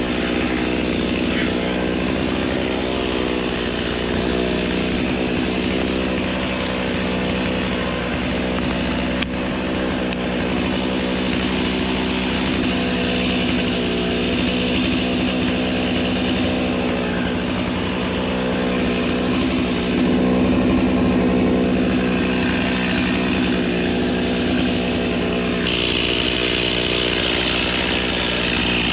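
Two-stroke chainsaw running steadily at high revs, cutting through a Mexican fan palm trunk.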